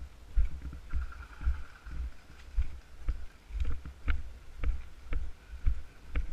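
Footsteps of the person wearing the camera, walking at about two steps a second, each step a dull thud carried through the body-mounted camera, with a few light ticks from gear.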